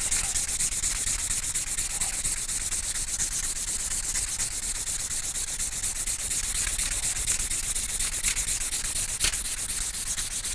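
Emery cloth being pulled rapidly back and forth around the brass shaft sleeve on a Bell & Gossett Series 80 pump motor shaft, a steady, fast rasping. It is buffing paint and buildup off the sleeve to leave a clean surface for the new seal.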